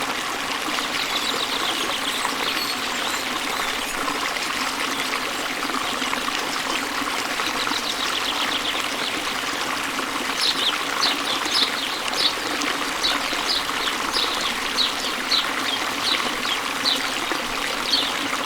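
Waterfall: a steady rush of falling and splashing water. In the second half, short high-pitched notes repeat about twice a second over the rush.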